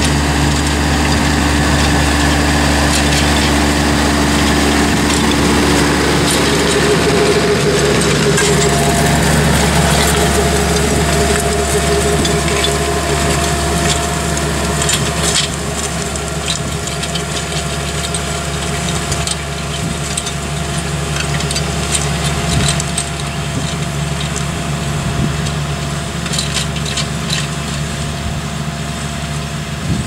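Farm tractor's diesel engine running steadily under load while pulling a mounted precision maize drill at work. The tractor passes and heads away, easing slightly in level past the middle, with a few light clicks from the machinery.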